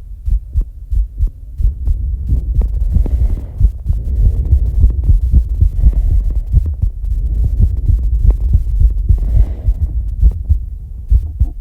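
A fast human heartbeat after exercise, a rapid, regular run of low thuds. From about two seconds in, heavy breathing joins it, with slow, deep breaths about every three seconds.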